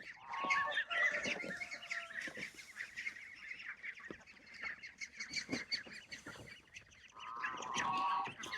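Ducks calling: a steady run of short, quick calls, with a louder bout of honking calls near the end.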